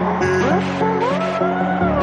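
Electronic background music: sliding synth tones over a steady pulsing bass line.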